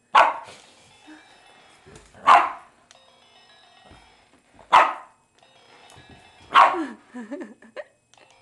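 Boston terrier barking: four loud single barks about two seconds apart, aimed at a toy wand it dislikes being waved at it.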